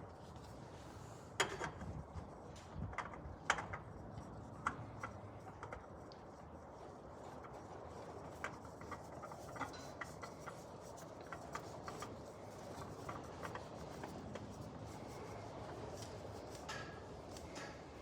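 Scattered light clicks and ticks with faint rubbing as a new oil filter, its gasket freshly oiled, is handled and threaded on by hand.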